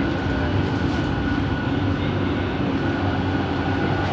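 Bombardier Innovia ART 200 metro train running, heard from inside the car: a steady rumble with a steady motor hum. The train is driven by linear induction motors, and the title calls their noise weird.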